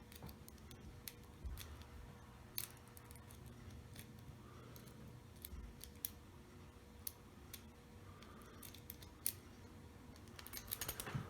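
Small, faint metallic clicks and ticks of a hook pick and tension wrench working the pin stack of a SEGAL 5-pin lock cylinder, coming irregularly, with a quick flurry of clicks near the end.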